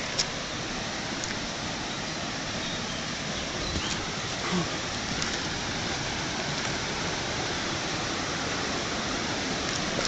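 Steady rush of water from a cascading stream, with a few faint knocks.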